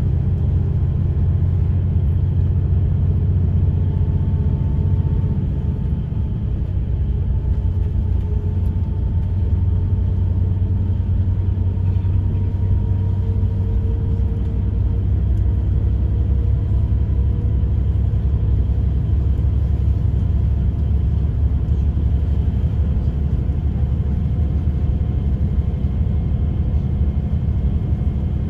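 Bus engine and tyre rumble heard from inside the passenger cabin, steady and low, with a faint whine that drifts slowly in pitch as the bus drives along.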